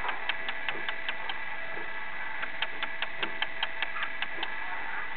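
A dot marker dabbed rapidly on paper on a plastic table, about six quick taps a second, in two runs with a pause of about a second between them, over a steady background hum.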